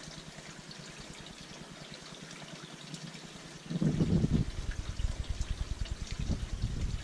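A man drinking beer from a pint glass in long gulps over a faint steady hiss, with a louder low gulp just before four seconds in.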